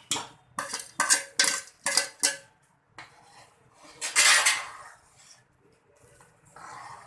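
A metal spoon clinks against a pot or bowl about eight times in quick succession, then makes a longer scraping rattle about four seconds in, as boondi is added to thickened kadhi and stirred in.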